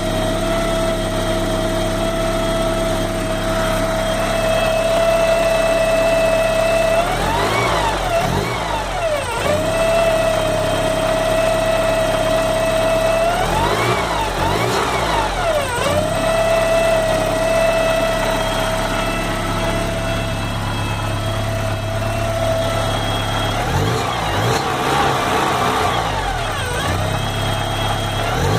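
Porsche 944 four-cylinder engine idling with a steady high whine over a hiss, blipped three times. The whine and engine note rise and fall with each rev.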